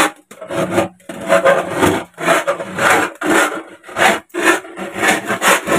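Kitchen knife sawing back and forth through the metal lid of a tin-can coin bank, in loud scraping strokes about two a second.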